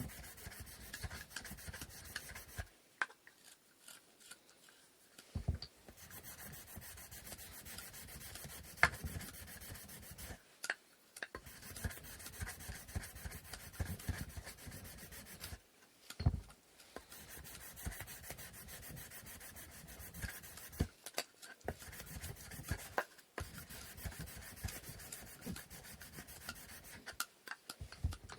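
Hand sanding of wooden inkle loom parts: sandpaper rubbing back and forth on wood in quick, steady strokes. The strokes come in spells of a few seconds, broken by short pauses and now and then a light knock.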